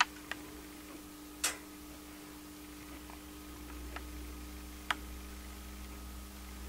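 A few scattered light clicks and taps, one slightly longer about a second and a half in, over a steady background hum.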